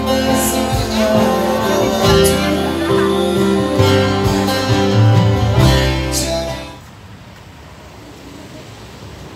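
Live band music through PA speakers: acoustic guitar with a voice over it. It cuts off suddenly about 7 seconds in, leaving only a low steady hiss.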